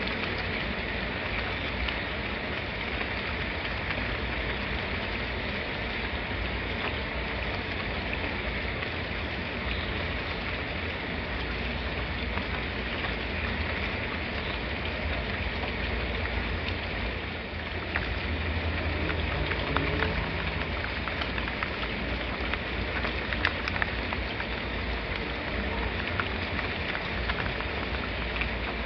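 Steady rain falling: an even hiss with a low rumble beneath it. From a little past halfway, louder individual drops tick and splash here and there.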